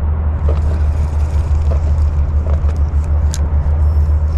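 Boat trolling motor running with a steady low hum, with a few light clicks from handling the rod and reel.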